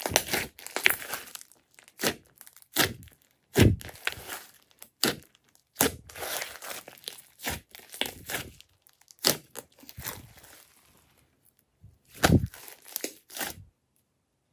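Hands squeezing and kneading a large mass of thick slime: irregular sharp pops, crackles and squelches as air is pressed out of it. The sound stops near the end.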